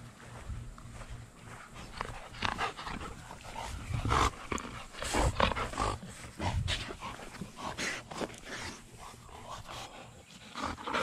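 Golden retrievers close by, making short irregular sounds amid rustling and low thumps that come more often and louder from about two seconds in.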